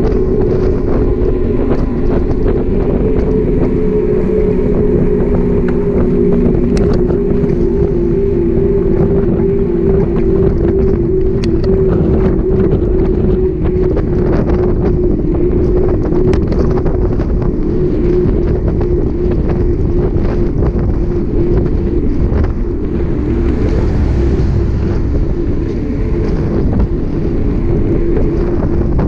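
Wind rushing over the microphone of a camera on a moving bicycle, with a steady hum from the tyres rolling on asphalt that sinks slightly in pitch over time.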